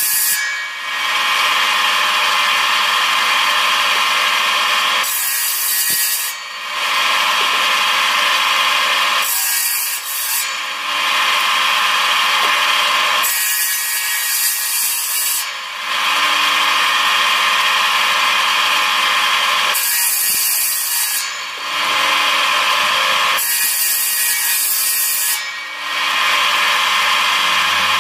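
Homemade table saw driven by a German-made 0.73 kW electric motor, running continuously with a steady whine while firewood branches are fed through the circular blade. About five times, a cut through the wood adds a harsher, hissing sawing noise for one to two seconds.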